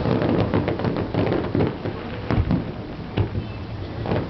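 Fireworks display bursting: a run of irregular bangs and crackles, several a second, with the strongest bang about halfway through.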